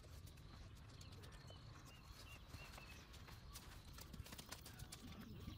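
Near silence: faint outdoor background with a low rumble and scattered faint ticks.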